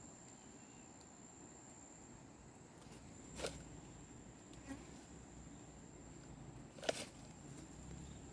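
Insects trilling in one steady high-pitched tone, with two sharp knocks or clicks about three and a half seconds apart.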